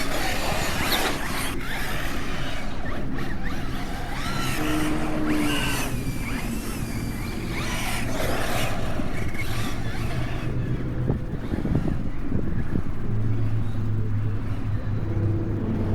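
Radio-controlled cars with brushless electric motors driving, the motor whine rising and falling in pitch over a steady rush of running noise.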